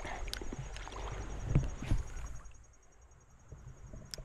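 Spinning rod and reel handled during a cast, over a low rumble of wind on the microphone: a few knocks and clicks, the two loudest about a second and a half in. After that it goes much quieter, and a single sharp click comes near the end.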